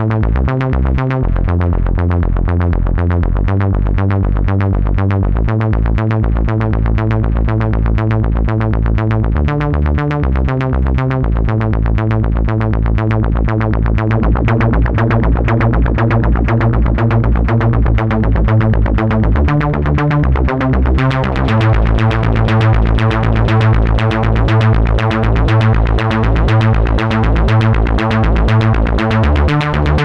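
GForce Oberheim SEM software synthesizer, an emulation of the monophonic Oberheim SEM analog synth, playing a fast repeating pattern of short notes over a bass that steps between a few pitches, with delay and reverb on it. The tone turns brighter about twenty seconds in.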